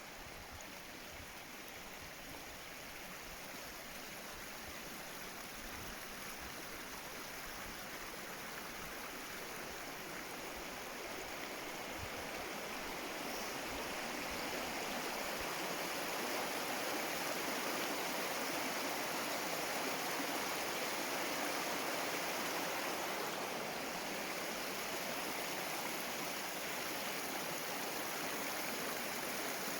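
Stream water rushing over rocks, a steady rush that grows louder over the first fifteen seconds or so and then holds level.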